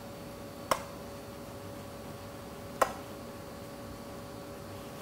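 Plastic squeeze bottle dispensing a thin sauce, giving two short sharp pops about two seconds apart over a faint steady hum.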